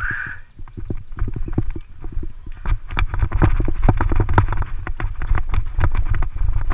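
Bicycle rattling and clattering over a rough gravel track, many irregular knocks over a constant rumble of tyres and wind on the camera microphone; the rattling gets denser and louder about two and a half seconds in.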